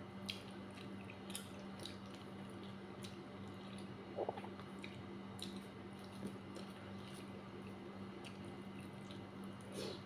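Close-up eating sounds: wet, sticky mouth clicks and smacks of chewing soft dhedo, scattered irregularly, over a faint steady hum.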